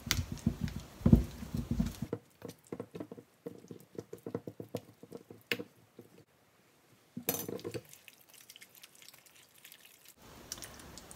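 Raw chicken pieces being mixed by hand with marinade and potato starch in a stainless steel bowl: soft wet squelching and small clicks, densest in the first two seconds, with a short louder patch about seven seconds in.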